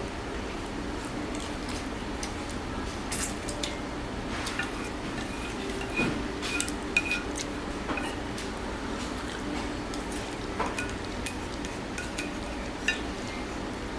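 Dishes and tableware clinking during a meal: a scattered run of small knocks and clinks, some with a short ring, over a steady low hum.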